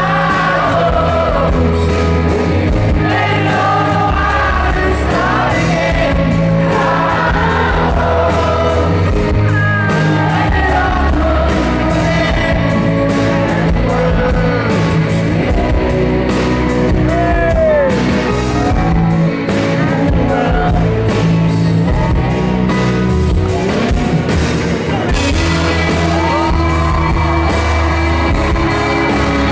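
A band playing live: male singing over electric guitar and keyboard, with a steady low bass line underneath.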